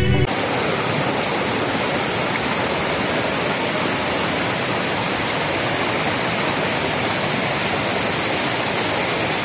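Shallow mountain stream rushing over rocks and boulders: a steady, even wash of running water.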